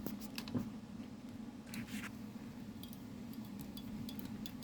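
Scattered light clicks and taps of small screws and plastic casing parts being handled, with a short brushing scrape just under two seconds in, over a steady low hum.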